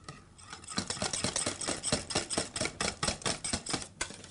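Hand wire whisk beating thickening pastry cream in a stainless steel saucepan, the wires clicking rapidly and rhythmically against the metal pot; the clicking stops near the end.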